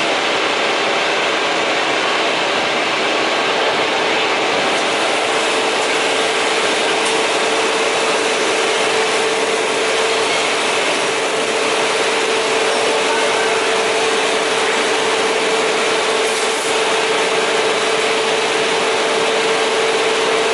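Gear grinding machine grinding the teeth of a spiral bevel gear: a steady grinding hiss with a constant hum underneath, unchanging throughout.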